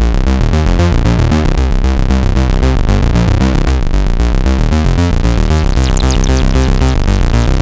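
Behringer Odyssey analogue synthesizer playing a fast pulsing, bass-heavy sequence. About six seconds in, bright high sweeping tones join it.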